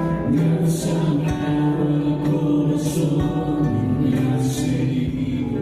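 Church choir singing a worship song with instrumental accompaniment, in sustained notes that move every second or so.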